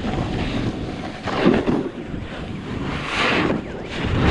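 Wind buffeting the microphone over the hiss and scrape of a snowboard's edge carving through snow, swelling twice as the board turns.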